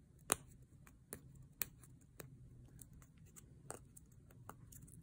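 Fingernails picking and scratching at the edge of a wide roll of washi tape, trying to lift an end that will not come free: faint scattered clicks and scrapes, the loudest about a third of a second in. The owner takes the stubborn tape for old stock.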